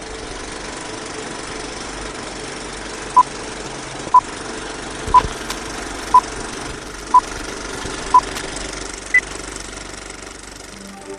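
Vintage film-countdown sound effect: a film projector clattering under steady hiss and crackle, with a short beep once a second, six in all, then a single higher-pitched beep. The beeps are the loudest sounds.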